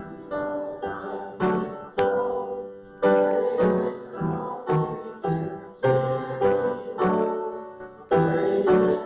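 Piano playing, notes and chords struck one to two a second and left to ring and fade.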